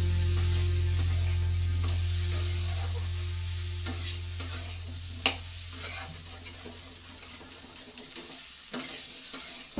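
Metal spatula stirring and tossing potato-and-green-pea curry in a karai while it sizzles as it fries, with several sharp scrapes of the spatula against the pan. A steady low hum underneath fades out past the middle.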